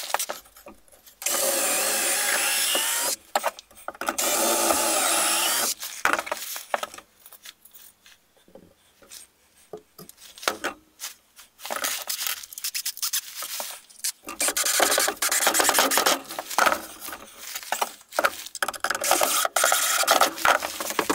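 Cordless drill boring and driving screws into a softwood frame. Two steady runs of about two seconds each come early on, then a quieter stretch of wood knocks and handling, then a longer stretch of drilling with a rapid ticking near the end.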